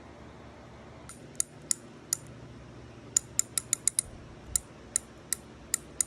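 Sharp mechanical clicks from a spinning fishing reel with a faulty line guide, about fourteen at uneven spacing: a few single clicks, a quick run of them, then roughly one every half second.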